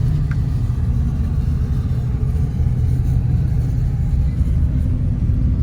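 Engine running with a steady low rumble that does not change in pitch or level.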